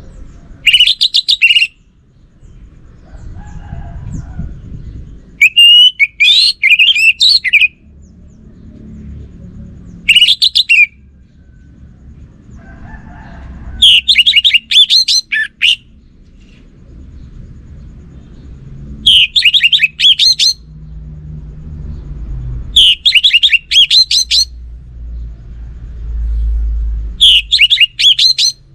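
Orange-headed thrush (anis merah) singing seven loud, rapid, high-pitched phrases of about one to two seconds each, with pauses of a few seconds between them. A low background rumble fills the gaps.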